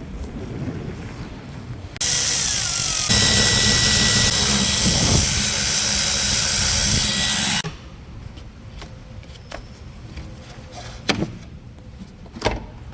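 A power tool running at speed for about five and a half seconds, starting and stopping abruptly, used to loosen the 10 mm bolts on the engine. A few sharp clicks and knocks follow.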